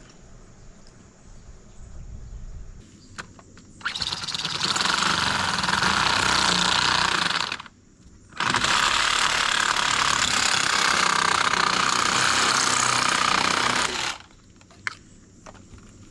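A power tool running loudly in two long bursts. It starts about four seconds in, stops briefly near eight seconds, and runs again until about fourteen seconds.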